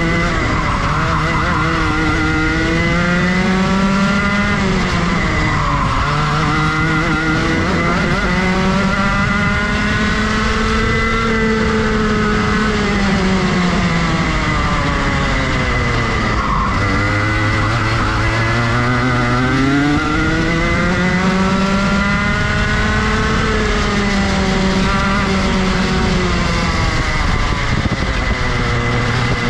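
Rotax Max Junior 125cc single-cylinder two-stroke kart engine at racing speed, its note climbing through the revs on each straight and dropping away as the driver lifts and brakes for corners, with three deep drops about six, sixteen and twenty-eight seconds in.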